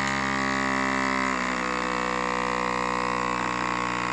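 Handheld rechargeable FoodSaver vacuum sealer running steadily as it pumps the air out of a zipper freezer bag through the bag's valve, with a slight shift in its tone about a second in.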